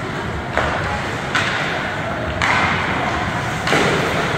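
Ice hockey play in an indoor rink: four sharp knocks, each followed by a hissing scrape, over steady arena noise.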